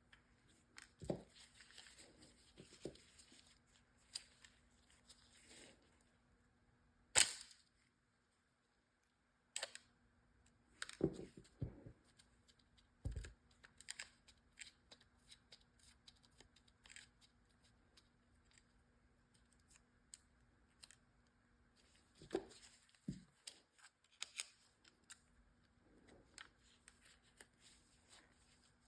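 Scattered small clicks, taps and brief scrapes of metal parts and tools being handled while a Hasselblad 500CM camera is worked on, a few sharper clicks standing out, over a faint steady hum.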